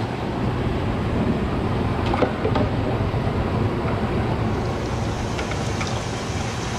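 Steady rush of water in a live-bait shrimp tank, with aerators and circulation running, and a few light knocks and splashes as a dip net scoops shrimp into a bucket about two seconds in.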